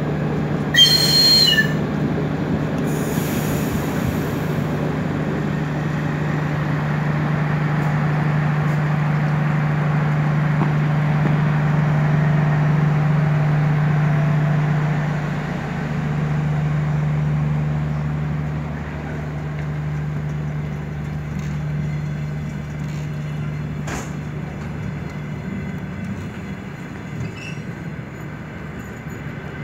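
Modernised diesel passenger train moving through a station with a steady low engine drone that fades after about fifteen seconds. A brief high squeal comes about a second in, a hiss about three seconds in, and a single clank near the end.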